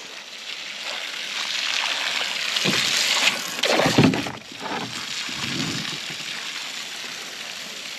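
Garden hose spray nozzle jetting a stream of water onto a pond surface: a steady hissing splatter that swells about three seconds in. A few dull thumps sound in the middle.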